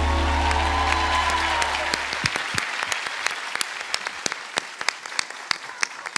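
Applause over the band's final held chord, which fades out about two seconds in. The clapping then thins to scattered single claps.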